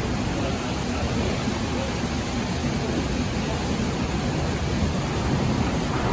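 Storm wind and heavy rain sweeping across a ship's open deck: a steady rushing hiss over a strong low rumble.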